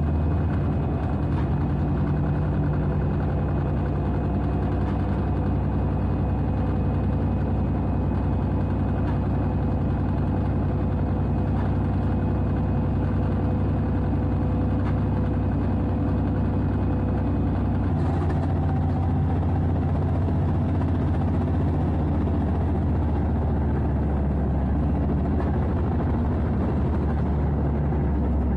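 Euro 3200 diesel-electric locomotive running steadily under way, heard from the cab: a constant engine drone. About two-thirds of the way in a higher hiss joins it.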